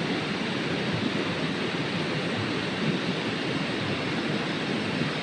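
Gas stove burner running under a pot of water with eggs in it, a steady, unbroken rushing hiss.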